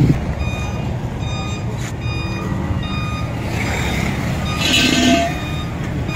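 A vehicle's reversing alarm beeping about twice a second over the steady low rumble of an engine, with a brief louder rush of noise about five seconds in.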